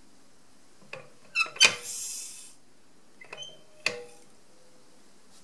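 Metallic clicks and clacks of a bench powder measure being worked, then Hodgdon Benchmark smokeless powder pouring through the transfer device into a brass scale pan as a short hiss about two seconds in. A sharp metal clack near the end rings briefly.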